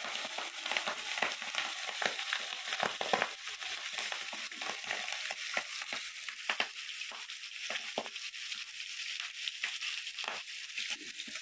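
Chicken feet deep-frying in a pan of hot oil: a steady sizzle with frequent sharp pops and crackles.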